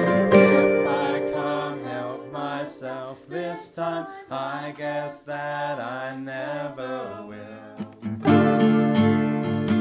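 Acoustic indie-folk band playing live: strummed acoustic guitar and ukulele under a sung vocal line. About eight seconds in, the strumming comes back in louder and fuller.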